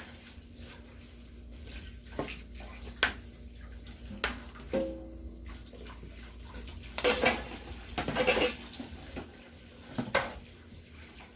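Kitchen prep sounds: scattered clinks and knocks of dishes and utensils, with a short ringing clink about five seconds in and a denser stretch of clatter around seven to eight seconds, over a faint steady hum.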